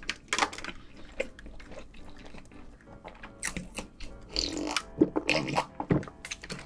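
Cola being sipped and gulped from a glass, with wet swallowing sounds, mostly in the second half.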